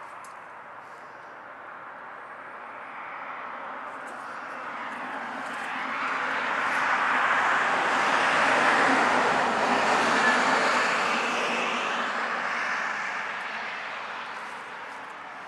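A passing vehicle's rushing engine noise swells slowly, peaks around the middle, and fades away over about ten seconds.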